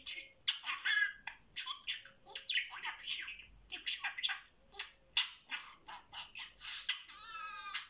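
Budgerigar chattering: a quick, irregular run of short chirps and clicks, with one longer buzzy call near the end.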